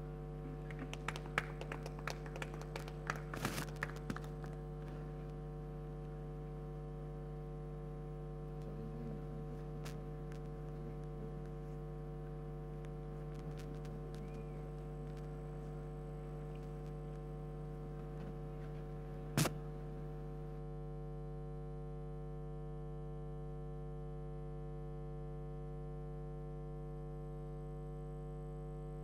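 Steady electrical hum and buzz, a low drone with constant overtones, runs throughout. A scatter of light clicks and knocks comes in the first few seconds, and one sharp click comes about two-thirds of the way through.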